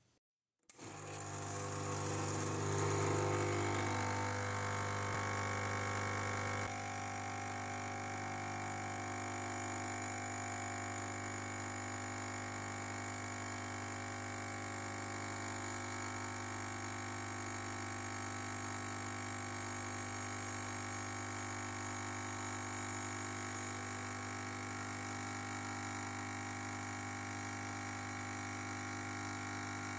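Faema Family espresso machine's pump buzzing steadily while it pulls a shot of espresso. It starts about a second in, is somewhat louder for the first six seconds or so, then settles to a slightly lower, even hum.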